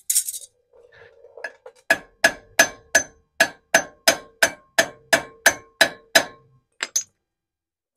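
Hammer striking the drive flange stud nuts on a Land Cruiser front hub, to knock the cone washers loose. It is an even run of about a dozen sharp metal-on-metal blows, about three a second, each ringing, with two lighter taps near the end.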